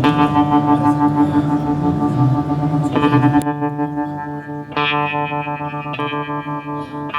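Electric guitar played through an EarthQuaker Devices Night Wire harmonic tremolo pedal, its held chords pulsing in volume with the modulation. New chords are struck about three, four and a half and six seconds in, each ringing out.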